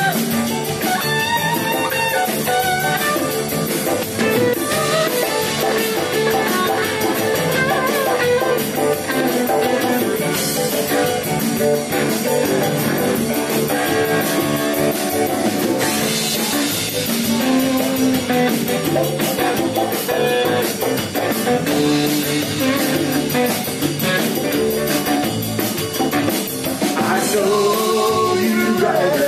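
A rock band playing a song with guitar and drum kit, at a steady level throughout.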